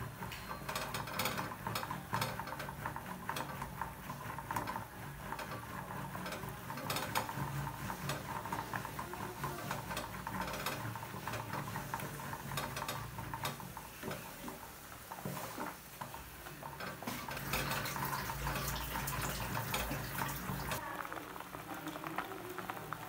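Wooden stick twirled between the palms in a metal pot of boiling stinging-nettle (sisnu) soup, knocking and clicking quickly and unevenly against the pot, with the soup bubbling.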